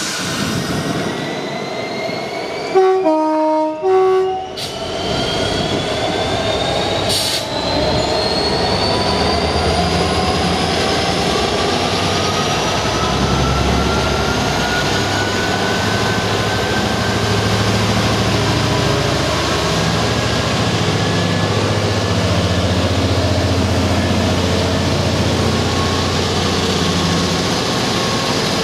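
Class 66 diesel-electric locomotive sounds its two-tone horn about three seconds in, a short high-low-high call. Its EMD two-stroke V12 engine then rumbles steadily as it runs past slowly at the head of a container train, with wheels rolling on the rails and a faint high squeal rising in pitch.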